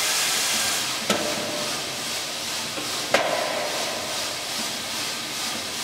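Green coffee beans pouring from the hopper into the turning drum of a drum coffee roaster, a steady rushing patter, with two sharp knocks about one and three seconds in. This is the charge: the beans dropping into the drum preheated to the 162° set value, the start of the roast.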